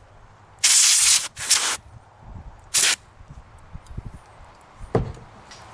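Compressed air blasting in short hissing bursts to blow dust out of a cuckoo clock movement: a long burst about half a second in, then a shorter one near three seconds, followed by light handling noise and a click.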